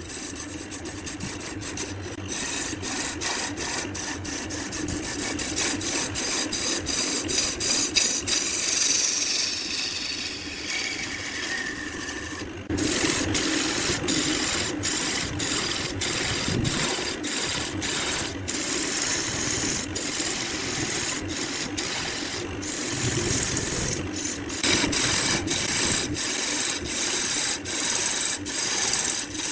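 Woodworking machine working timber: a steady motor hum under dense scraping and rasping of wood being cut or abraded, with a sudden change in level about twelve and a half seconds in.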